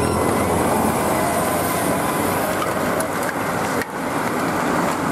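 Motor vehicles passing on the road, a steady rush of engine and tyre noise with a brief dip about four seconds in.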